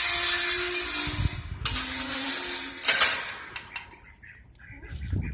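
Metal gate being dragged shut: two long scrapes with squealing tones, then a sharp metallic clank about three seconds in.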